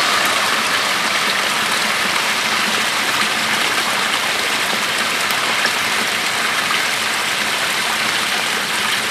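Flash-flood storm runoff flowing along the edge of a road: a steady, even rush of water.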